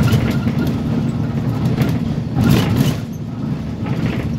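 Optare Tempo single-deck bus running: a steady low engine drone with road noise and a few brief rattles, the loudest about two and a half seconds in.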